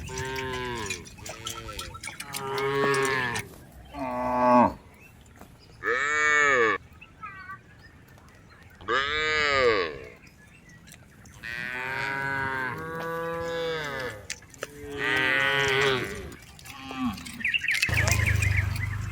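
Cattle mooing again and again, about nine calls in a row with short pauses between, each call rising and then falling in pitch.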